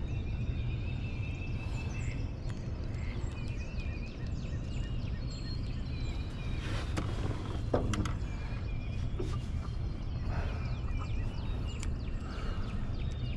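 Birds calling repeatedly over a steady low rumble, with a few sharp clicks and a short falling sound about seven to eight seconds in.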